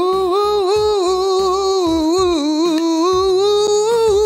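Music: a man's voice holds one long sung note, its pitch wavering, over a steady beat of deep kick drums that drop in pitch.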